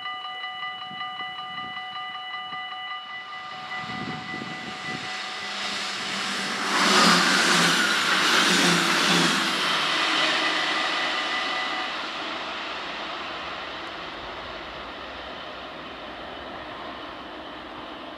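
Level-crossing warning bell ringing rapidly and steadily while an electric passenger train passes close by. The train's rush of wheel and rail noise swells to its loudest about 7 to 10 seconds in, then fades. The bell stops about 12 seconds in.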